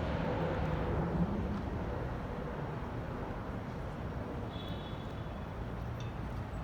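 Steady low rumble of outdoor urban background noise, like distant traffic, with a brief faint high chirp about halfway through.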